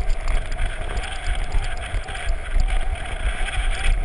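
Wind buffeting the microphone of an on-board camera as a downhill mountain bike speeds down a paved street, with tyre rolling noise underneath; a steady rushing rumble that rises and falls.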